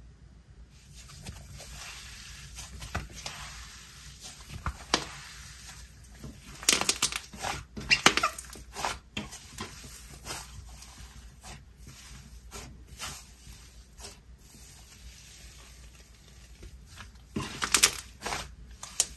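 Moist icee-texture slime being squished and pressed between the hands, giving a run of clicks and pops, densest about seven to nine seconds in and again near the end.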